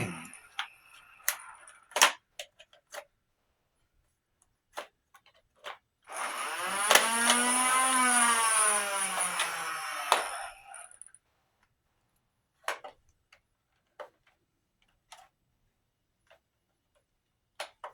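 A Nerf Ultra blaster jammed and not firing: its motor whirs for about four seconds in the middle, the pitch rising and then falling, with no dart leaving. Scattered clicks and knocks from handling the blaster come before and after.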